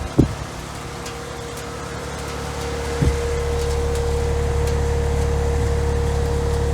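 2017 Bryant Legacy Line 1.5-ton heat pump outdoor unit running in heat mode: a steady low hum with a steady mid-pitched tone over it. There are two short knocks at the start, and a thump about three seconds in, after which the low hum is louder.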